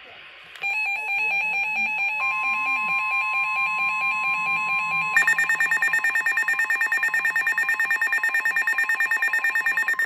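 Two NOAA weather alert radios, an Eton and a Reecom, sounding their electronic alarms for a weather warning: rapid pulsing beeps start about half a second in, a steady single tone, the broadcast warning alarm tone, runs under them for a few seconds, and about five seconds in a higher, fast beeping alarm takes over until all cuts off at the end.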